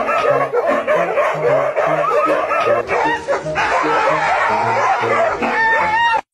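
Several dogs, among them huskies, whining and howling in high calls that rise and fall, with one longer call near the end. Background music with a steady bass line plays underneath.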